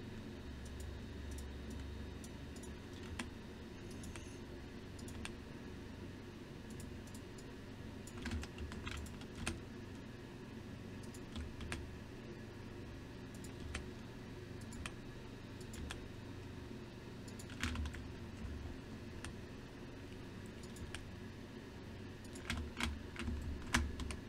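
Computer keyboard keys tapped irregularly, with quick clusters of clicks in the middle and near the end, over a steady low hum.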